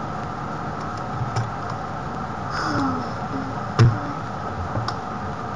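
Steady microphone hum and hiss with a few sharp clicks from computer mouse and keyboard use. The loudest click comes about four seconds in.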